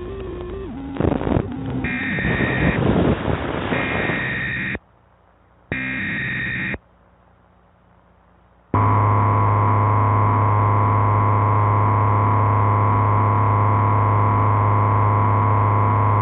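Emergency Alert System broadcast tones: distorted static and noise, then about three short screeching data bursts of the SAME header, each about a second long with short gaps. About nine seconds in, the EAS attention signal starts, a loud, steady, buzzy two-tone alarm that holds for about seven seconds and cuts off abruptly.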